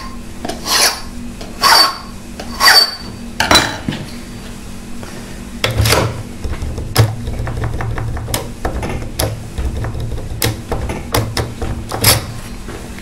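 Hand file scraping across a knife-edged key blank in about four strokes, one a second, deepening the impression mark on cut 1. From about six seconds in the blank is wiggled in the Asec profile cylinder with an impressioning handle: a low rattle and sharp clicks as the pins bind against the blank and mark it.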